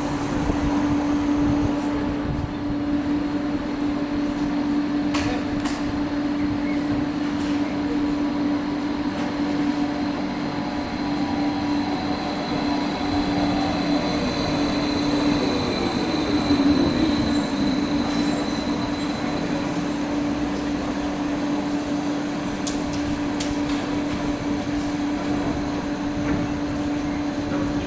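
Electric trains at a station: a steady hum from a standing train, while an arriving SOB Stadler FLIRT's motor whine falls in pitch as it brakes in the middle of the clip. There are a few sharp wheel clicks near the end.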